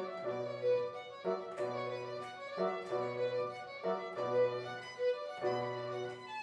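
Classical string music: a violin melody over sustained low notes, the harmony changing in steady steps about every second and a quarter.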